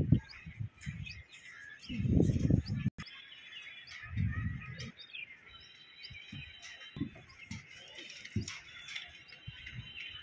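Small birds chirping and twittering throughout, with a few low bumps and rustles of hands handling plastic pipe fittings, the loudest about 2 and 4 seconds in.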